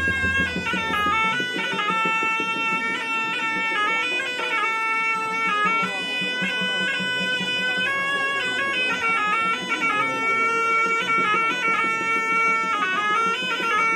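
Background music: a reedy wind instrument, bagpipe-like, plays a sustained melody with quick ornamental runs over a steady drone.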